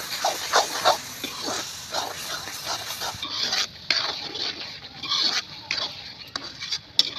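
A metal spatula and ladle scraping and clinking against a steel kadhai, in irregular strokes several times a second, as a thick masala with peas is stirred while it fries with a light sizzle.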